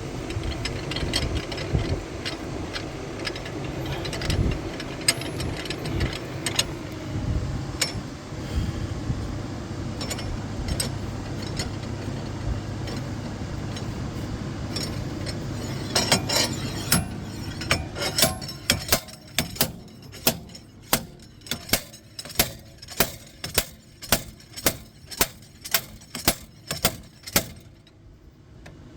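Slide hammer threaded onto a seized front hub assembly, first rattling and clicking as it is fitted, then slammed back again and again in a steady run of sharp metal strikes, roughly one to two a second, trying to pull the hub with its worn wheel bearing out of the steering knuckle. A low steady hum runs under the first half.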